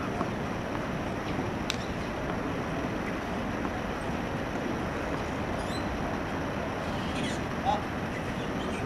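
Steady outdoor background noise with no clear source of its own, broken by a single sharp click about two seconds in and a few faint high chirps in the second half.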